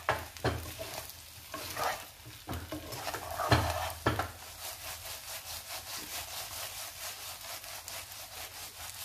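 Wooden spatula stirring and scraping steamed semolina rings around a frying pan, with several knocks in the first four seconds. Under it, the light sizzle of the rings frying in a little hot oil with spices, which settles into a steady sizzle.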